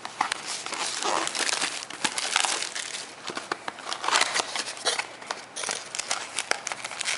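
Crinkling and tearing of trading-card packaging as a Topps Finest mini box is opened: a run of rustles and many small sharp clicks.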